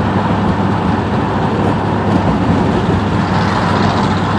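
Lexus SUV exhaust leak, a steady rasping rush from the engine heard over road and engine noise in traffic, like air escaping straight out of the block. It sounds to the following driver like every exhaust manifold gasket has blown.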